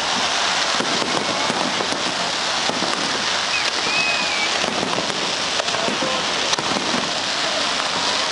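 Fireworks display: a steady, dense crackling and fizzing of many small pops from ground fountains and aerial bursts, like heavy rain, without pauses.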